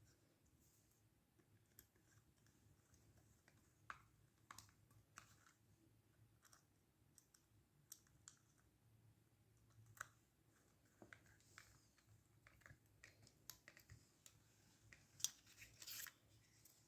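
Faint, irregular clicks and ticks of small hand work: a screwdriver driving the screws that close a repaired LED lamp's housing. A few louder clicks come near the end.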